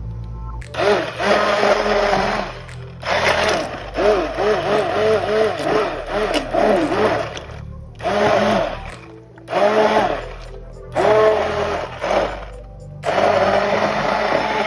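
Immersion blender puréeing chunky squash soup in a pot. It is switched on and off in several bursts, and its motor whine wavers up and down as the blade works through the soft chunks.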